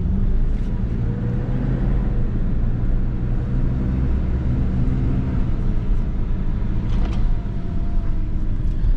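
2004 BMW 325xi's inline-six engine and road noise as the car is driven, a steady low hum. The engine is running smoothly, its misfire cured by new ignition coils.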